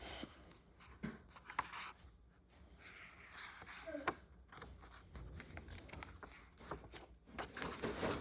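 Faint rustling and a few light clicks in a quiet room, with a brief faint falling sound about four seconds in.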